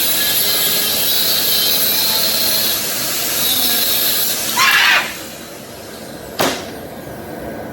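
A power tool runs steadily with a hissing whir and stops about four seconds in. A short scraping sound follows, then a single sharp knock.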